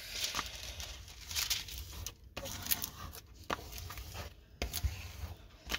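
Clear plastic cover film on a diamond painting canvas rustling and crinkling as it is pressed and smoothed flat, first by hand and then with a triangular plastic tool, with scattered small clicks and short pauses.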